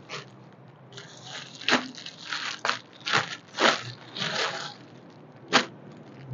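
Clear plastic packaging bag crinkling and rustling in a string of uneven bursts as a folded polo shirt is pulled out of it and unfolded, with one sharp crackle near the end.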